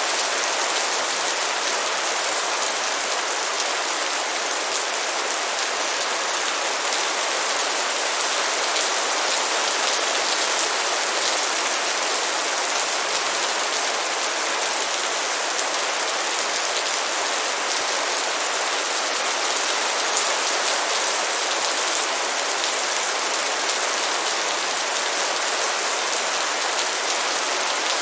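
Light rain falling steadily, an even hiss of many small drops.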